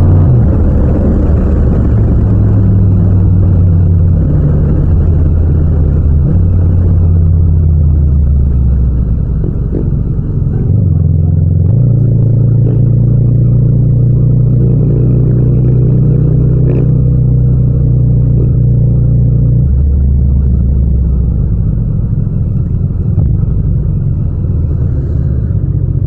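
Yamaha MT-07's 689 cc parallel-twin engine running at town speed, heard from the rider's seat. Its note falls as the throttle closes about eight seconds in, picks up again around twelve seconds, and drops lower near the end as the bike slows.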